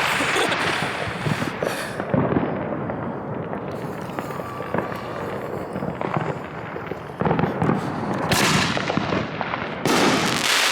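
Fireworks going off in dense succession: a continuous crackle of pops and bangs, with a couple of louder blasts near the end.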